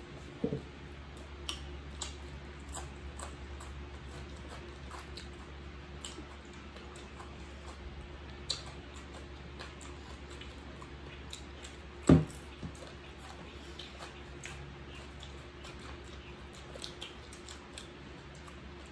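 People eating ripe mango slices by hand: quiet chewing and small clicking mouth and hand noises over a steady low hum. One loud thump about twelve seconds in.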